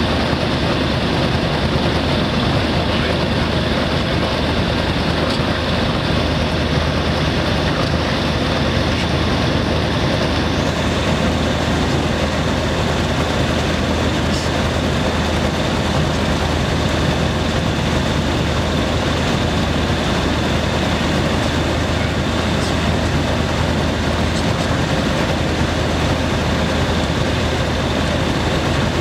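Light aircraft's piston engine and propeller running steadily on the ground, heard from inside the cockpit.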